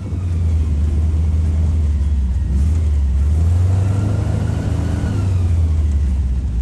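Airboat engine and large air propeller running at speed, a loud deep drone that swells in the first second and rises briefly in pitch about three to four seconds in before easing back.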